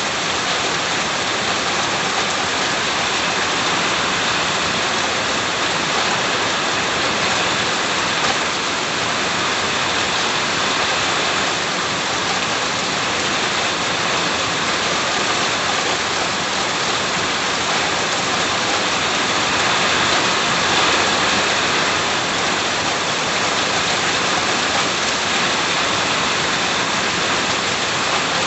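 Steady heavy rain falling on and around a house, a dense, even hiss of raindrops on surfaces, swelling slightly about two-thirds of the way through.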